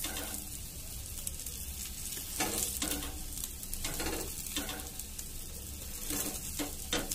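Egg omelette sizzling on a hot flat griddle (tawa), with a metal blade cutting through it and scraping against the griddle in several short strokes from about two seconds in.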